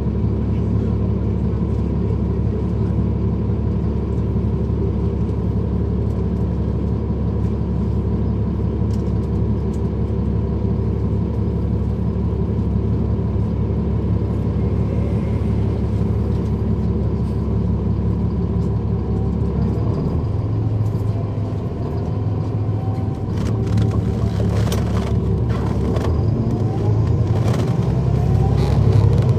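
Cummins ISL9 diesel of a 2010 NABI 40-SFW transit bus, heard from aboard, running with a steady low drone. About two-thirds through the note changes and the bus pulls away, its pitch rising as it accelerates through the ZF Ecomat automatic transmission. Knocks and rattles come in from the same point.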